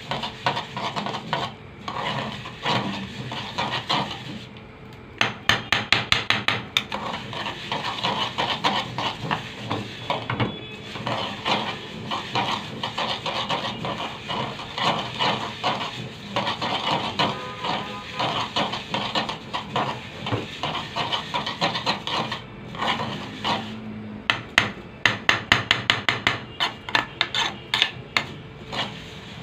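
A spoon stirring and scraping vermicelli around the bottom of a pot as it toasts in ghee and oil, in quick runs of knocking, scraping strokes. The runs are fastest about five seconds in and again near the end.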